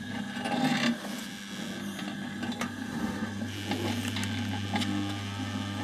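Electric motor of a small boilie dough mixer running, its finger-paddle axis whisking eggs and liquids in a stainless steel pot, with a steady low hum and continual irregular rattling and scraping from the pot. The hum drops away near the start and returns about three seconds in.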